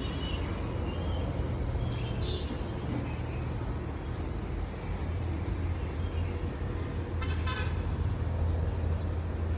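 A steady low engine-like rumble, with a few short high bird chirps in the first few seconds and a brief rapid, harsh-sounding call about seven and a half seconds in.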